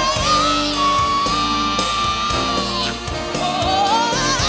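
Live band music with singing: a high melody line slides up and is held for about two seconds over sustained chords, then climbs again near the end.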